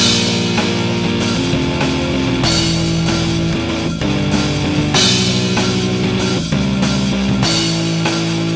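Rock music with electric guitar and a drum kit: sustained guitar chords, with a cymbal crash about every two and a half seconds.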